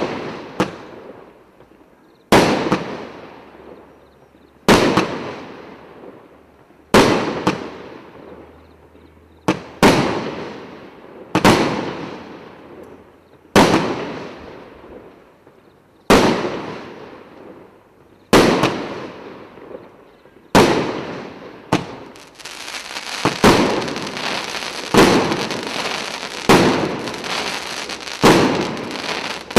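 A 'Zeppelin' consumer firework battery firing: a sharp bang about every two seconds, each trailing off in a long fading echo. About 22 seconds in, the shots come faster over a continuous dense crackling.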